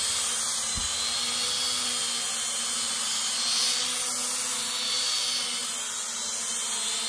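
Small folding quadcopter drone hovering close by, its propellers and motors giving a steady high-pitched whine whose pitch rises and falls as it manoeuvres. A brief low thump comes about a second in.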